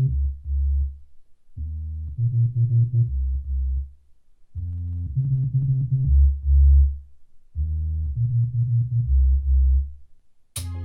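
Music played through a JBL portable Bluetooth speaker: a bass-heavy synth riff of low notes only, repeating about every three seconds. Near the end the full track comes in with drums and bright high end.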